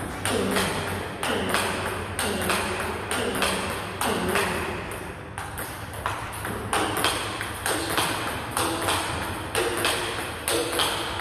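Table tennis rally: the ball clicks sharply off a Butterfly Fan Zhendong ALC blade with Dignics 09C rubber and off the partner's bat, and bounces on the table, about two to three clicks a second in a steady rhythm of forehand topspin against block.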